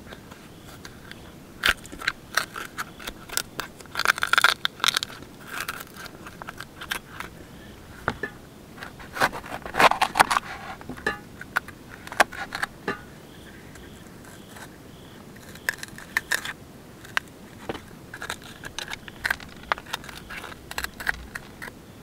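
Kitchen knife scraping the seeds and pith out of hollowed green bell peppers: irregular short crunchy scrapes and clicks, busiest about four and ten seconds in.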